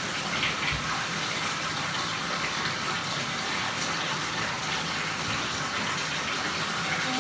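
Water running steadily into a bathtub.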